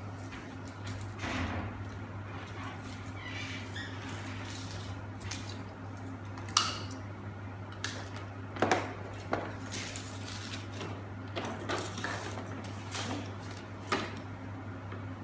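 Small hard plastic pieces, a surprise-egg capsule and a toy figure, handled on a tabletop: a scatter of sharp clicks and knocks with quieter rustling between them, over a steady low hum.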